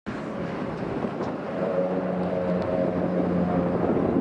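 Diesel locomotives of a departing freight train working out of sight: a steady engine drone with a held hum that comes in about a third of the way through, mixed with wind on the microphone.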